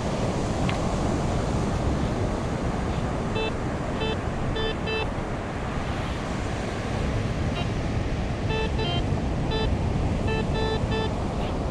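Handheld pinpointer probe (White's TRX) beeping in short, clipped electronic bleeps, in quick clusters of two to four starting about three seconds in, as it closes in on a buried coin in the sand. Underneath runs a steady rush of surf and wind.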